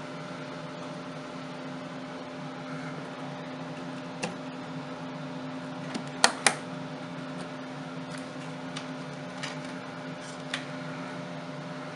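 Crucial Ballistix Tactical Tracer memory sticks being pressed into motherboard RAM slots, the plastic slot latches clicking: one click about four seconds in, two loud clicks in quick succession around six seconds in, and a few lighter ticks later. A steady low hum runs underneath.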